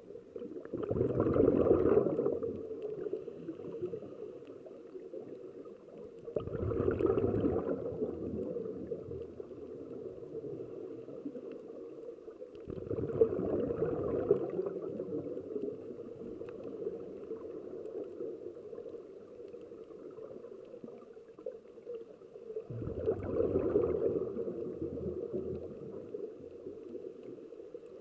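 Scuba divers' exhaled bubbles from their regulators, heard underwater: four rushing, gurgling bursts a second or two long, several seconds apart, one per breath. A steady low hum runs between them.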